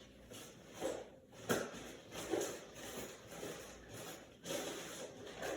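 Rummaging and handling noises: rustling and shuffling with scattered knocks and clicks, the sharpest about one and a half seconds in.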